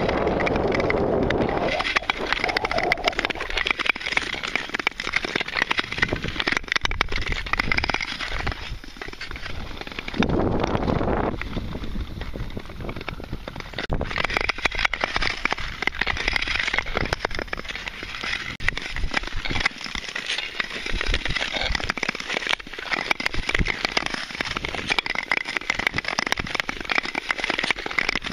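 Long-distance tour skates gliding and scraping over clear black lake ice, with many small sharp clicks and cracks throughout. Wind rumbles on the microphone in the first two seconds.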